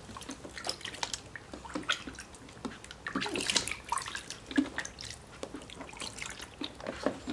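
Shallow water in a plastic baby bathtub splashing and dripping as hands scoop it over and rub a vinyl doll's legs, in short, irregular splashes.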